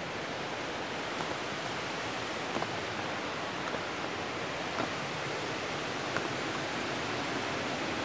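Steady rush of falling water from the waterfall, an even hiss with no pauses, with a few faint taps scattered through it.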